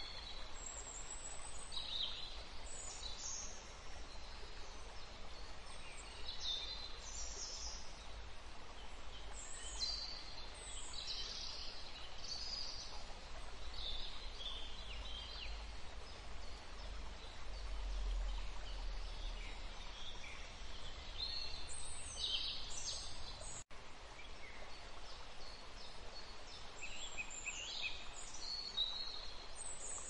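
Rainforest ambience: birds calling with frequent short, high chirps and quick falling notes over a steady background hiss. The sound cuts out for an instant about two-thirds of the way through.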